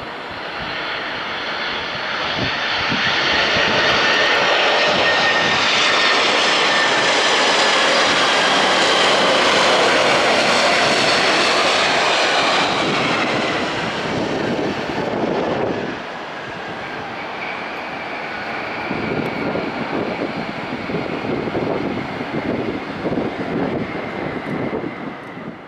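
Boeing 747-400's four Pratt & Whitney PW4000 turbofans passing close on final approach: a loud jet roar with a whine that slides down in pitch as the aircraft goes by. After touchdown the noise drops about two-thirds of the way through, then a rougher, unsteady rumble rises as the jet slows on the runway, typical of reverse thrust on the landing roll.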